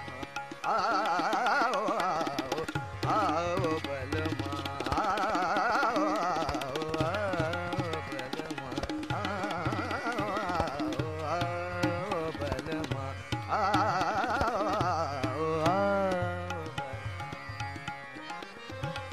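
Background music in Indian classical style: an ornamented sung melody, wavering in pitch, in phrases over tabla and a steady low drone.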